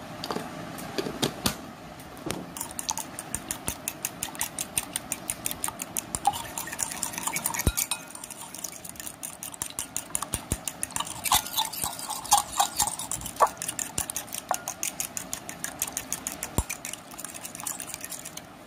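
Fork beating three raw eggs in a ceramic plate: the tines click rapidly and steadily against the dish as the eggs are whisked, with a brief pause about eight seconds in.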